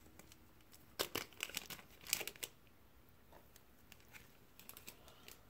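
A small packet of mica powder crinkling as it is squeezed and shaken out: two bursts of crackling about one and two seconds in, then fainter crinkles near the end.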